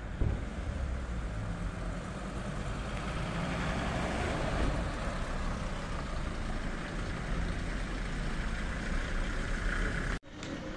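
Engine of a Mercedes-Benz funeral van running steadily at idle, a low rumble that breaks off sharply near the end.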